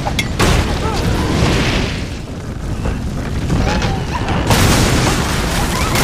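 Building fire: the dense noise of flames burning, with sudden booms as fire bursts, about half a second in and again about four and a half seconds in, under film music.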